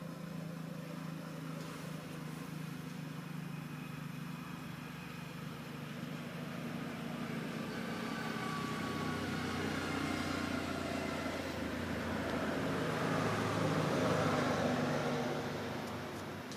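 A motor vehicle's engine droning past, growing louder to a peak near the end and then fading.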